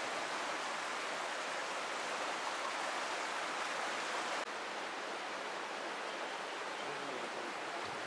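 Steady rushing hiss of the canyon's flowing stream, dropping slightly about halfway through.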